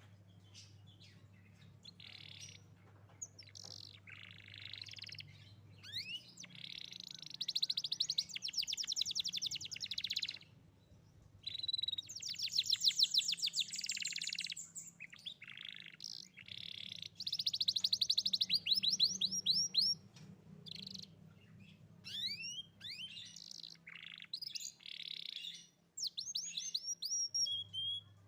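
Young domestic canary singing a long, varied song: runs of rapid trilled notes broken by rising and falling whistled sweeps, with short pauses between phrases.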